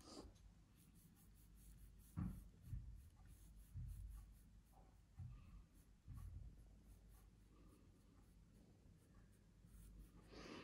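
Faint brushing of a large paintbrush over canvas, blending wet oil paint, with a few soft dull knocks.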